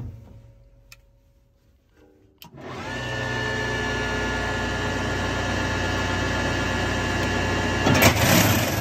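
A small motor starts about two and a half seconds in. Its whine rises briefly in pitch, then it runs steadily with a hum underneath.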